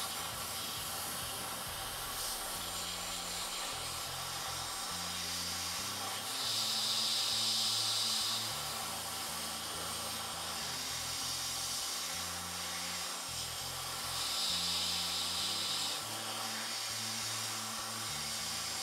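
Hot-air rework station blowing a steady hiss while heating an HDMI connector's solder joints to desolder it, with a few louder stretches of hiss.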